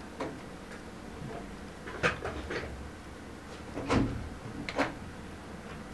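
A handful of short knocks and clicks, about five, the loudest about two and four seconds in, over a low steady background hum.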